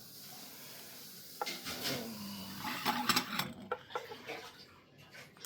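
Cutlery clinking and tapping on a plate: a sharp click about a second and a half in, then a cluster of light clinks around the three-second mark.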